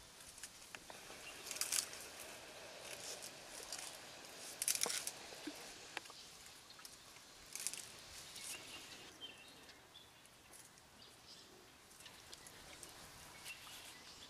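Dry grass and branches crackling and rustling as an African elephant handles and feeds on browse, in three short louder bursts about three seconds apart with small snaps between, over a faint outdoor background.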